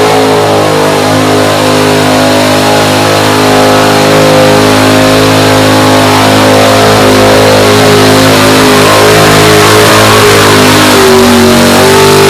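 Pickup truck's engine held at high revs, loud and steady, as the truck churns through a mud-bog pit; the pitch steps up about eleven seconds in.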